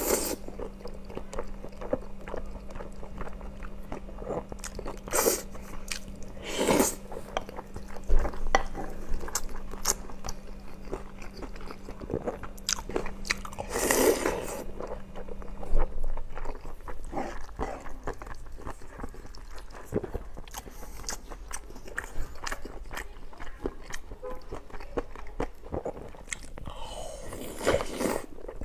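Close-miked eating: biting into and chewing spicy chicken and rice with gravy, a string of small wet clicks and crunches, with a few louder bites along the way.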